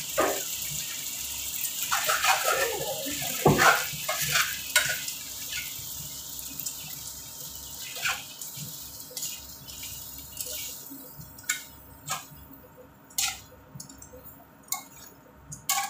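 Metal tongs tossing spaghetti in a frying pan, clicking and knocking against the pan several times, with the clicks standing out in the second half. A steady hiss, fitting sizzling in the pan or a running tap, fades out about two thirds of the way through.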